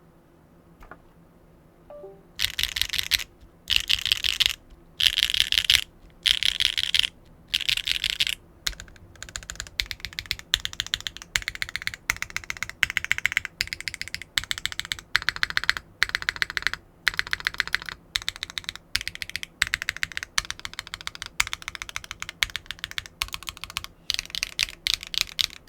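Fast typing on a foamless gasket-mount custom mechanical keyboard with HMX TT Red linear switches on a carbon fiber plate: clacky, high-pitched keystrokes. After about two seconds of quiet the typing comes in short bursts with brief pauses, then runs more continuously in the second half.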